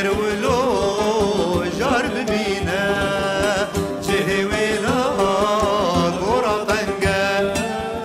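A man singing a Kurdish folk melody in long, wavering lines while strumming a long-necked lute with fast, continuous picking.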